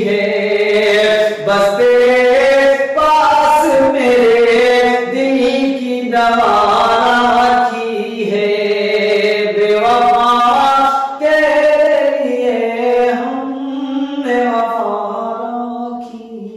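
A man singing a ghazal-style Urdu love song in long, drawn-out melodic phrases without words being picked out, his voice bending and holding notes; the singing fades near the end.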